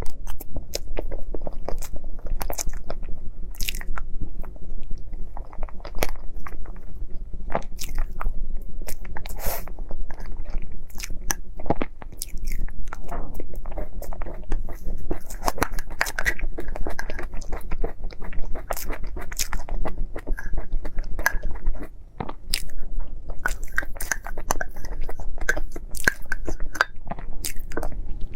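Close-miked eating: crunchy bites and chewing of a crisp, hollow fried "air box" pastry, many sharp irregular crackles one after another.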